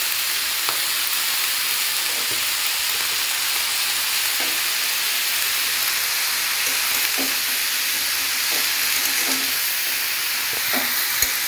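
Cauliflower stems, potato and aubergine frying in a metal karai with a steady sizzle. Now and then a metal spatula scrapes and taps against the pan as they are stirred.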